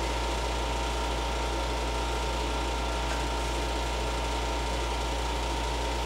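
Window air conditioner running: a steady low drone with a thin, high steady tone over it.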